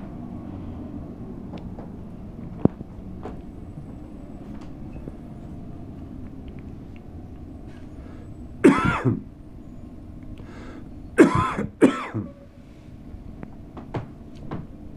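A person coughing: once about halfway through, then twice more in quick succession a couple of seconds later, over a steady low background hum, with a single sharp click earlier on.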